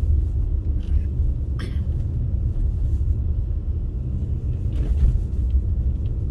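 Steady low road rumble heard inside a moving car's cabin while driving on a snow-packed road, with a faint tap about a second and a half in.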